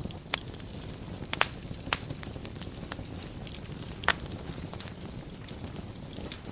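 Wood fire in a fireplace crackling, with a steady low rumble under scattered sharp pops, the loudest about four seconds in.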